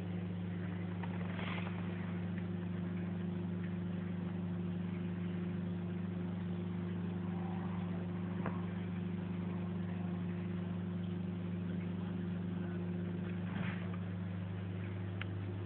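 Aquarium pump running with a steady low electrical hum, with a few faint clicks.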